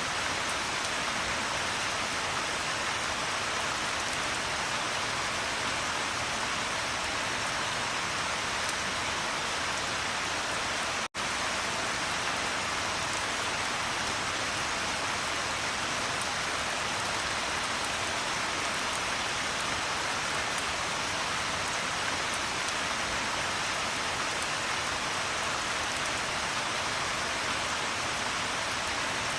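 Steady rain falling, an even, dense hiss of drops. It cuts out for an instant about eleven seconds in and resumes at once.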